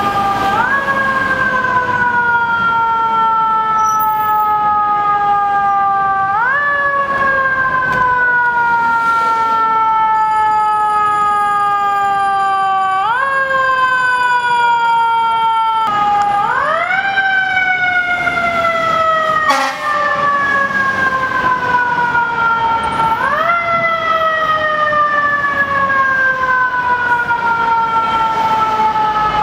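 FDNY ladder truck's mechanical siren wailing, repeatedly wound up to a quick high rise and then left to coast slowly down in pitch, about five times. City traffic runs underneath.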